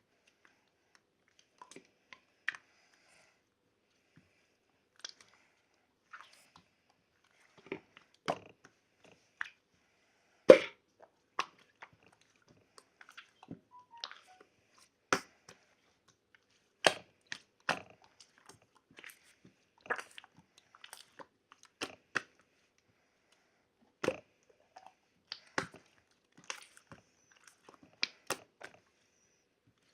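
Irregular short clicks and crunches, scattered one to a few a second with silence between them; the loudest comes about ten seconds in.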